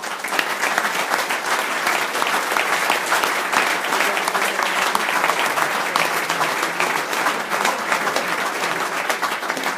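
Audience applauding: many hands clapping together in a dense, even clatter that breaks out suddenly and keeps going.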